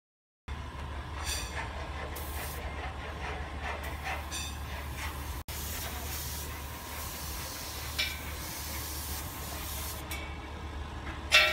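Gravity-feed air spray gun hissing as it sprays zinc chromate primer onto a steel square-tube frame, louder in stretches as the trigger is worked, over a steady low rumble. A short sharp ringing sound near the end.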